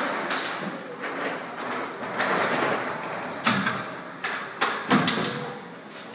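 Steady rushing background noise at an aquarium's underwater viewing window, broken by several sharp knocks in the second half, the loudest about five seconds in.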